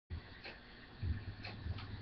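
Faint room sound: a steady low hum that grows louder about halfway through, with a light tick about once a second.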